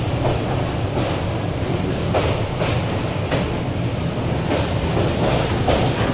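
Express train running across a steel truss railway bridge, heard from an open coach door: a steady low rumble with sharp beats every half second to a second.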